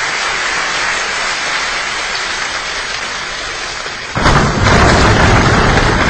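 Steady hiss of heavy rain, then about four seconds in a sudden loud clap of thunder that rolls on with a deep rumble.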